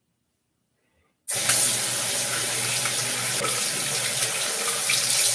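Dead silence for about a second, then a tap comes on suddenly and runs steadily into a bathroom sink.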